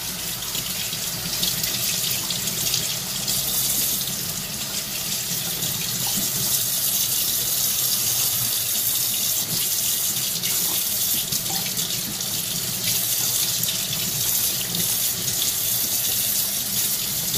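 Kitchen tap running steadily into a sink, the stream splashing over a gutted yellow croaker as its belly cavity is rinsed clean by hand.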